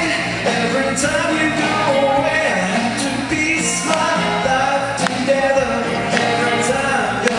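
Live pop-rock band playing a song with a singer, drums hitting a steady beat about once a second.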